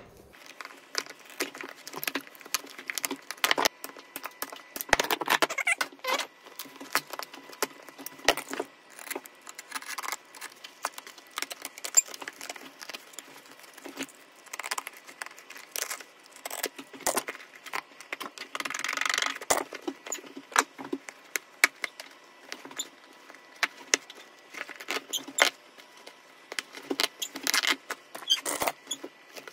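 Hand tools at work on old boots being taken apart: a quick, dense jumble of clicks, taps and rattles, with longer scraping stretches about five seconds in and again near nineteen seconds.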